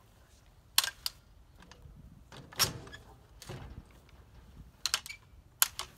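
Irregular sharp clicks and knocks, about eight in all, from a lineman's hot stick working the elbow connectors in a pad-mounted transformer's cable compartment. Two duller thumps fall near the middle.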